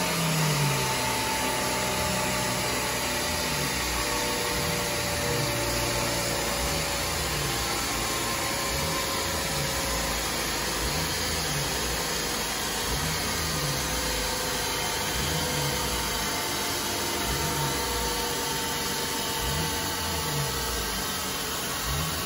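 Steady fan-like rushing of air on a rolling road, with a faint low hum that swells and fades about every two seconds.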